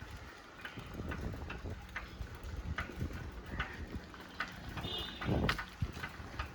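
Street sounds while riding a bicycle: low wind rumble on the microphone with irregular clicks and rattles, a brief high ringing tone near five seconds and a louder rustling burst just after.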